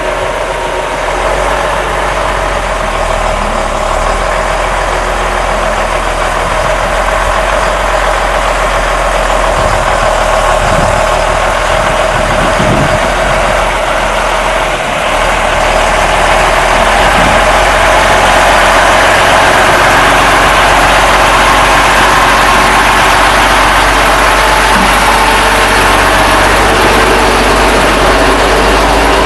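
A vehicle engine running steadily, growing a little louder about halfway through.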